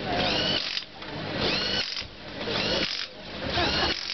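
Power tool run in four short bursts about a second apart, each a high whine that spins up and falls away.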